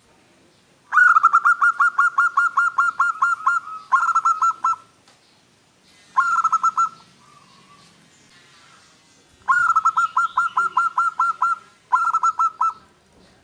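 Zebra dove (perkutut) singing its cooing song: a run of quick staccato coos at about five a second, followed by a short burst of coos. A single short burst comes in the middle, and the long run and short burst are repeated near the end.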